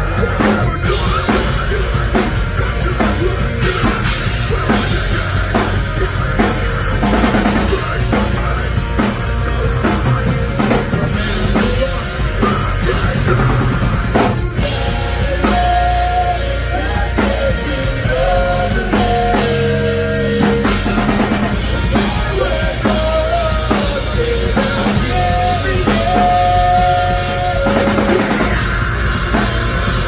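A metalcore band playing live: a pounding drum kit with bass drum and snare under guitars and bass. From about halfway through, held melodic notes sound over the riffing.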